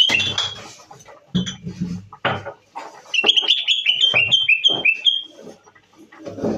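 Common bulbul calling: a quick run of about ten short, high chirps that step slightly downward, about three seconds in, with the tail of a similar run at the start. Loud knocks and rustles sound between the calls.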